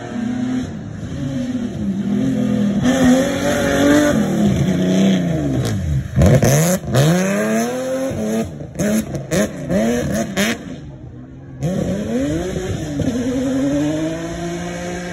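Rally car engine passing at speed on a stage, its note rising and falling again and again as it revs. Past the middle the sound breaks off several times in quick succession, then an engine note builds again near the end.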